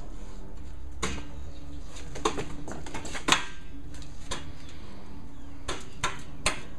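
Scattered metal knocks and clinks from galvanized steel roof-rack tubes being handled and fitted together, about nine short hits at uneven intervals, the loudest a little past three seconds in, over a steady low hum.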